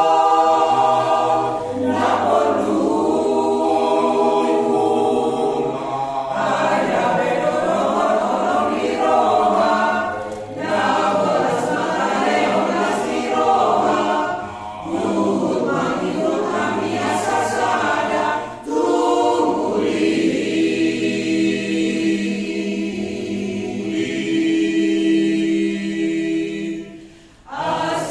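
Mixed amateur church choir of women and men singing in parts, unaccompanied, in phrases with short breaks for breath. From about two-thirds of the way through, a long chord is held, and it breaks off shortly before the end.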